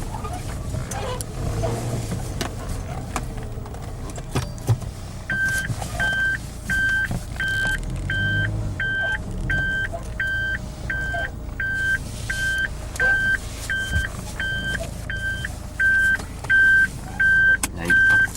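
Evenly spaced electronic beeps, about one and a half a second, starting about five seconds in and running on over a low steady rumble.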